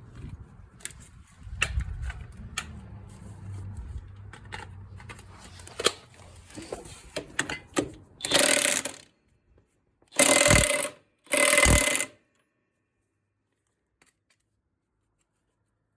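Hand tools clicking and clinking on metal parts at an ATV's rear hub while a new cotter pin is fitted, then three short, loud bursts of rasping mechanical noise a second or so apart. The sound cuts off suddenly about twelve seconds in.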